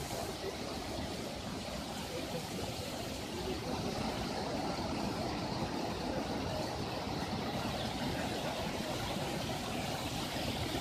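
Floodwater rushing and churning over rocks through a breached causeway, a steady, unbroken rush of turbulent water.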